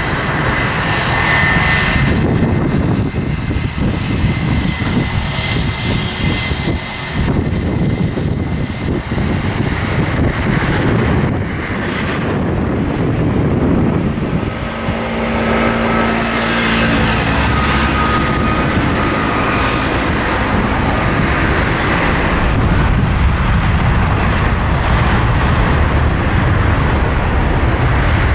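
Airbus A321 jet engines running with a high whine and a steady rumble as it taxis onto the runway. From about halfway through they power up for the takeoff roll, growing a little louder, with new whining tones.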